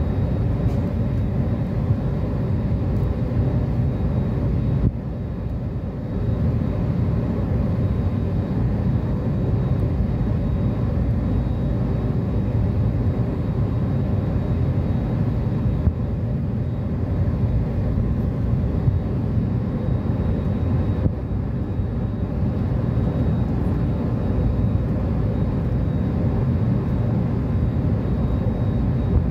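Jet airliner cabin noise during the climb after takeoff: the steady, deep drone of the engines and rushing air, heard from inside the cabin at a window seat over the wing.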